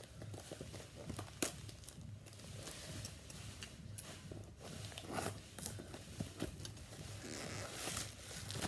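Black plastic wrapping on a small parcel crinkling and tearing as it is cut and pulled open, with scattered sharp clicks and a longer rustle near the end.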